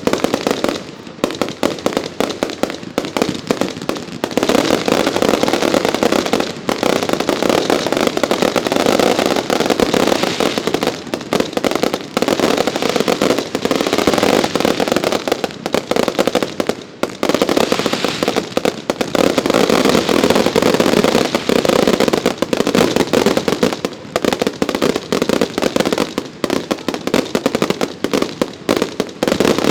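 Fireworks display: a dense, almost continuous run of crackling reports and bangs, easing off briefly a few times.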